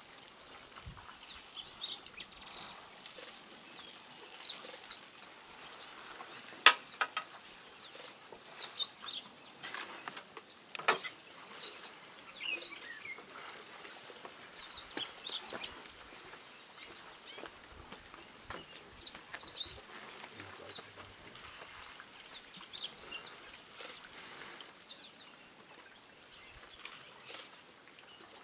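Small birds chirping over and over in short, quick calls, with a few sharp clicks: the loudest about seven seconds in, and two more around ten and eleven seconds.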